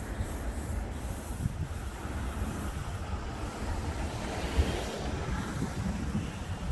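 Steady low rumble of outdoor street noise: road traffic and wind buffeting the microphone.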